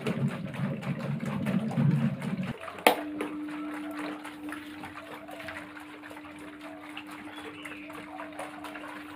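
A bicycle wheel fitted with plastic-bottle blades spinning, a low fluttering whoosh. About three seconds in there is a sharp click, then an electric desk fan runs with a steady low hum.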